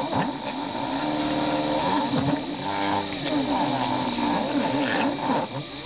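Stepper motors of a home-built Proxxon CNC mill whining, their pitch rising and falling over and over as the axes speed up and slow down. Underneath is the steady sound of the BFW 40 milling motor driving a V-shaped engraving bit through wood.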